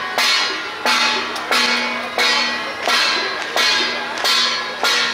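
Procession gong struck in a steady, even beat, about one stroke every 0.7 seconds, each stroke ringing on and fading before the next.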